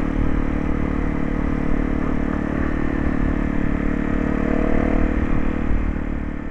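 Honda CRF250L's single-cylinder four-stroke engine running at steady revs while being ridden, under a steady rush of wind and road noise. It fades away near the end.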